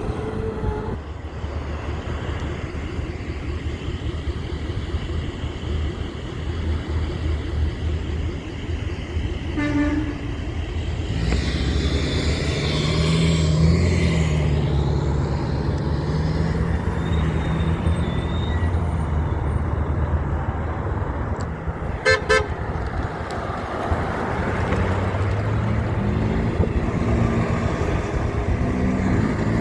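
Big trucks' engines rumbling past in traffic, one passing louder about a third of the way through. A brief, loud truck horn blast sounds about three quarters of the way in, with a fainter short toot earlier.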